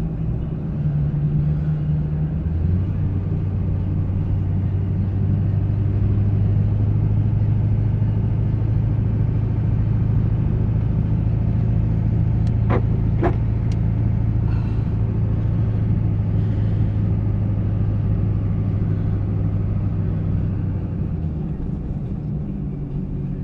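Pickup truck's engine and exhaust heard from inside the cab while driving, a steady low drone held at one pitch for most of the time and easing off near the end, over road noise. Two short squeaks about halfway through.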